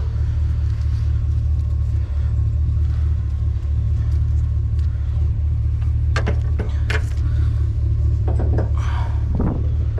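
Truck engine and road running as a steady low rumble heard from inside the cab, with a few short knocks and rattles about six to seven seconds in.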